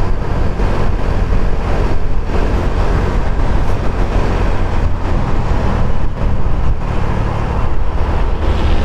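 Motorcycle riding at speed: steady wind rush on the microphone mixed with engine and road noise, heavy in the low end.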